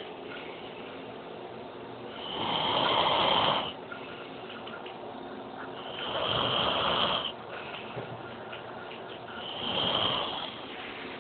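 Snoring: three long, rasping breaths about four seconds apart, each with a thin whistling edge.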